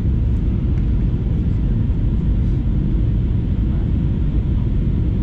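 Steady low rumble of an Airbus A320neo in descent, heard inside the cabin: the even drone of airflow and the engines.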